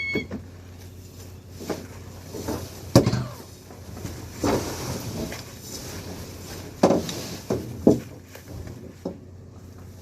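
Knocks and wooden clunks of gear being handled aboard a fishing trawler, a few seconds apart, over the boat's steady low engine hum.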